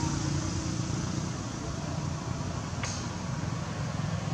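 Steady outdoor background hum and hiss, with one brief click about three seconds in.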